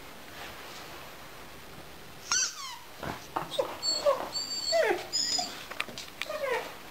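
A Gerberian shepsky (German shepherd–husky cross) puppy whimpering and yelping in short falling cries, starting about two seconds in. Mixed in is the high squeak of the rubber squeaky toy bone it is biting.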